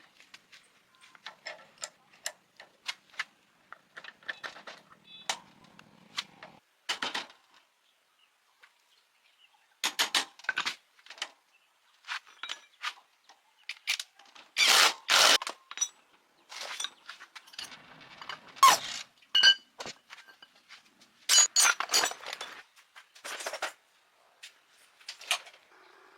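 Irregular metallic clicks, clinks and knocks of hand tools working on metal parts, with louder clusters of knocks about a third of the way in, around the middle and again later on.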